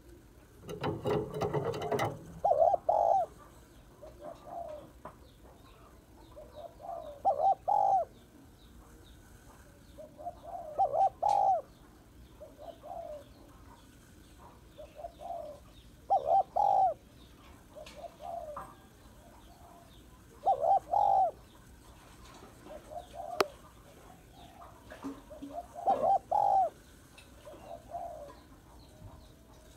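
Female spotted dove cooing: soft coos build to a louder double coo, and the phrase repeats about every four to five seconds. A brief rustle comes about a second in.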